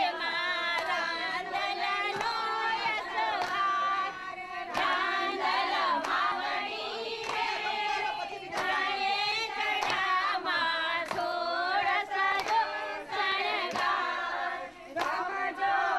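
A group of women singing a song together, with steady rhythmic hand claps keeping the beat.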